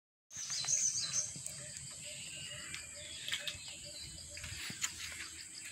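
Outdoor birdsong with a steady insect drone, high chirps in the first second, and a regular run of short low calls about three or four a second.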